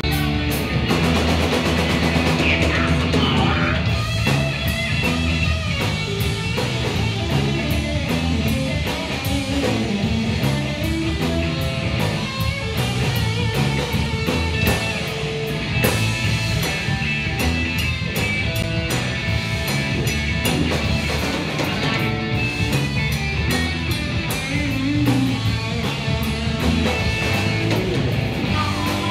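Live rock band playing an instrumental stretch: distorted electric guitars, electric bass and a drum kit with steady drum and cymbal hits.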